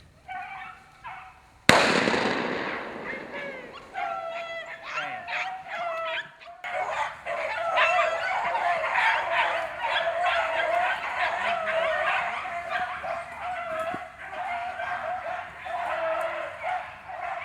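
A single gunshot about two seconds in, ringing out as it fades. Then a pack of beagles bays as they run a rabbit, their voices overlapping into a steady chorus.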